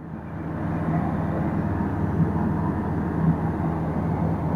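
Single-engine light aircraft's Rotax engine droning steadily in cruise, heard from inside the cockpit with a rush of wind noise; it grows louder over the first second, then holds even.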